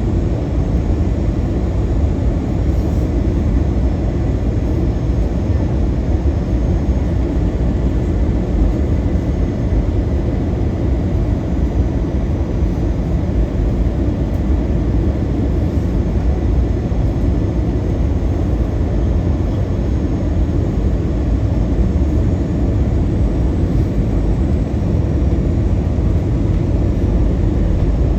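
Steady, loud low rumble of a vehicle in motion, heard from inside, unchanging throughout.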